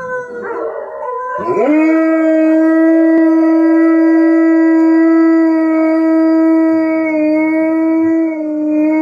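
Dog howling: a short wavering howl, then from about a second and a half in one long, steady howl.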